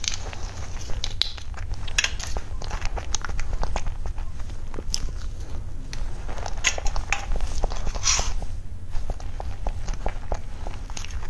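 Close-miked eating sounds: a metal spoon clicking and scraping against a plastic tray as it cuts into soft mousse cake, with wet mouth and chewing noises, in scattered sharp clicks.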